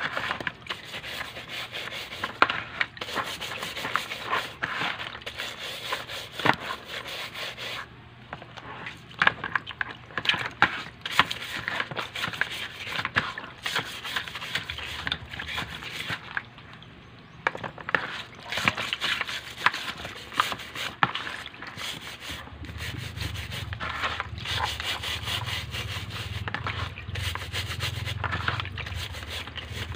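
Stiff scrub brush scrubbing the shell of a spiny lobster: quick, rasping back-and-forth strokes, with a few short pauses.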